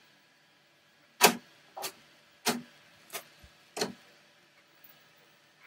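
Five sharp clacks of hard 3D-printed plastic being handled and knocked down, evenly spaced a little over half a second apart.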